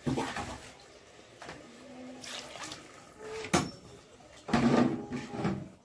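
Water being poured from a glass into a pressure cooker of masala-fried mutton, splashing and filling the pot. A sharp knock comes about three and a half seconds in.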